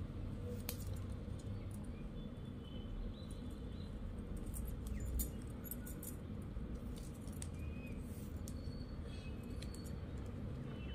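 Plastic craft wire strands rubbing, faintly squeaking and ticking as they are pulled through and knotted by hand, over a steady low background hum.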